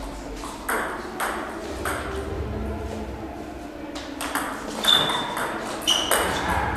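Table tennis ball clicking off bats and the table in a rally, the hits sparse early on and coming faster from about four seconds in, each ringing briefly in a large hall. Two short high squeaks come near the end.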